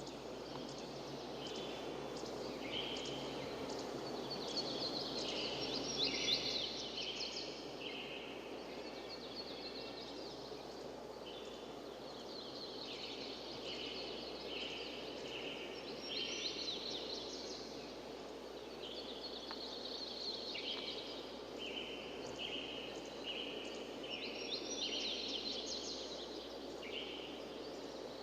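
Steady rush of flowing river water with high chirping calls over it: repeated short chirps and quick sweeping calls that come and go in clusters.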